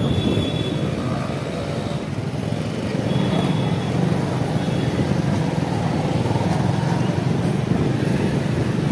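Engine of a slow-moving vehicle running steadily in city street traffic, a rough low rumble with road noise and no sudden events.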